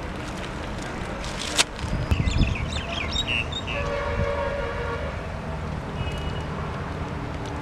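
Outdoor ambience over a steady low hum: a sharp click, then a few low thuds and splashes from hands working in shallow muddy water about two seconds in, some high chirps, and a held horn-like tone about four seconds in.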